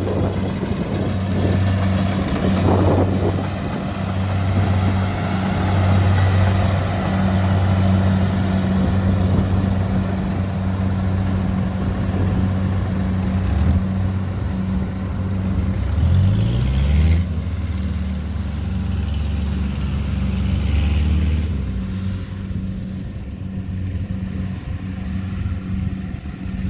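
Diesel engine of a Kubota DC70 combine harvester running steadily under load. Its pitch rises briefly about two-thirds of the way through, and it grows a little quieter near the end.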